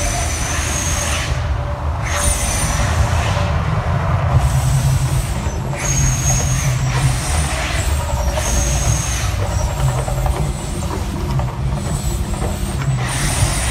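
Mirage volcano show's gas flame jets whooshing in repeated bursts of about a second each, over a steady deep rumble.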